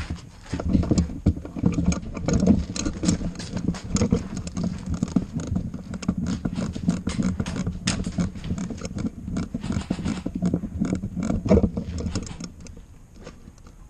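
Quick, irregular footfalls and the rattle of carried gear from a person moving fast, easing off near the end.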